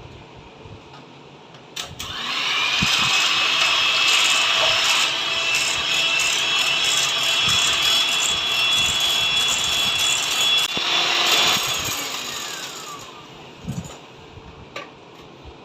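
Electric mixer beating eggs. The motor starts about two seconds in and runs with a steady whine for about ten seconds. It is then switched off and winds down, its pitch falling.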